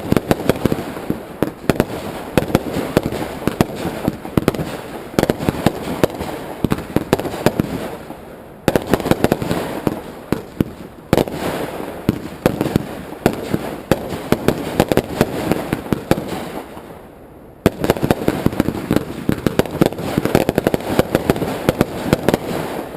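Consumer fireworks going off: a dense crackle of many small rapid reports. There are three volleys, one at the start and fresh ones starting abruptly about 9 and 18 seconds in, each thinning out before the next.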